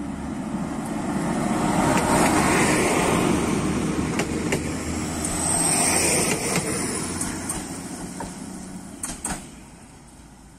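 A regional multiple-unit passenger train passing close by, with engine and wheel-on-rail rumble that swells to a peak and then fades. A faint high squeal comes from the wheels about halfway through, and a few sharp clicks follow near the end as the train moves away.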